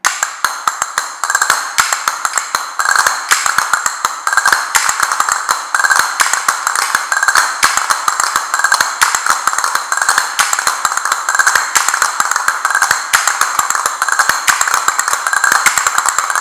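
Two pairs of castanets played together in a fast, unbroken run of sharp clicks, with a regular accent about every three-quarters of a second. It is the practice pattern of rolls and strokes counted "pos-pi-ta, pos-pi-ta, ría".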